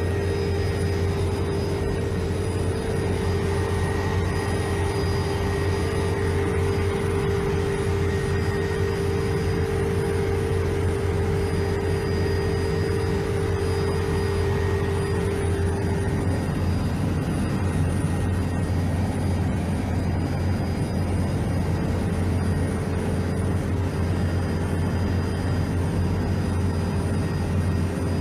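Helicopter cabin noise heard from inside: the steady, loud drone of the rotor and turbine engine with a strong low hum. One of its steady tones drops away about halfway through.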